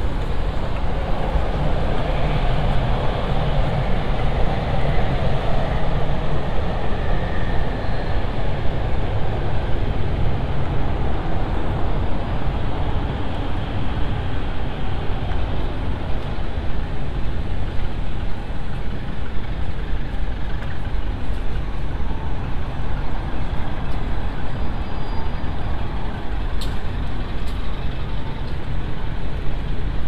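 Steady city traffic noise: cars and heavier vehicles running on a busy road, a constant rumble with no single vehicle standing out.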